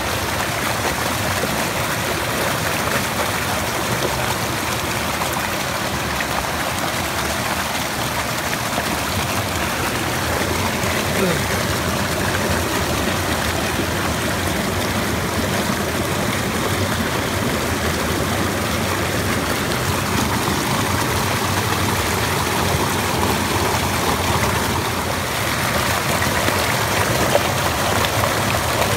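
Floodwater rushing steadily over an overflow weir, an even, unbroken rush.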